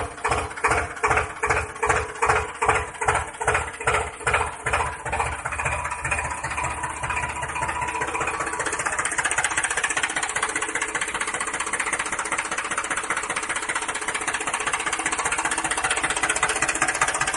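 Engine running with a chugging beat of about three pulses a second, settling after about five seconds into a steady, even drone.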